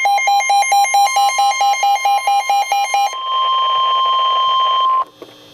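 NOAA Weather Radio warning alert: an electronic alarm beeping about four times a second over the steady 1050 Hz warning alarm tone. The beeping stops about three seconds in, the tone carries on alone and cuts off abruptly about five seconds in, leaving faint radio hiss.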